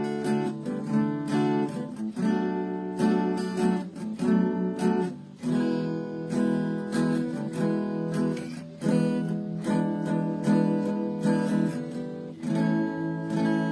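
Small 3/4-size custom steel-string acoustic ('cowboy') guitar being strummed, a steady run of strokes with the chords changing every second or so.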